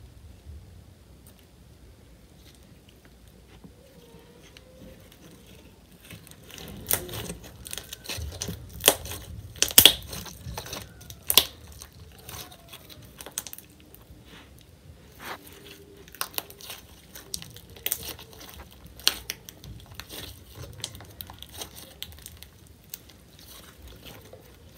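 Clear slime, tinted red, being squeezed and kneaded by hand: sticky squishing with sharp pops and clicks. It is quiet for the first few seconds, then comes a dense run of pops, loudest about ten seconds in, thinning out near the end.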